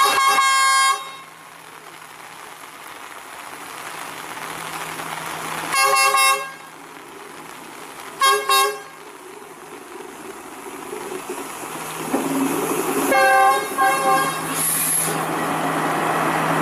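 Sri Lanka Railways Class S14A diesel multiple unit sounding its horn in a string of blasts: a one-second blast at the start, a short one about six seconds in, two quick toots just after eight seconds, and two more around thirteen seconds. Between the blasts there is a steady engine hum and rain hiss, growing louder as the train draws alongside near the end.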